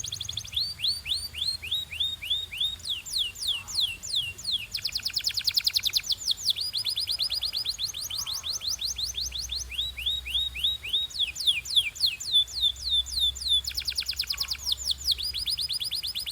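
Canary singing: a long song of repeated down-sweeping whistled notes, some series slow at about three notes a second and others fast trills of ten or more a second, switching to a new phrase every second or two.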